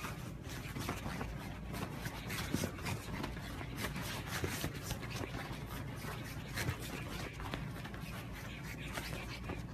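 Bedding rustling with soft, irregular scratches and scrapes as a French bulldog puppy scrambles across a duvet, over a steady low hum.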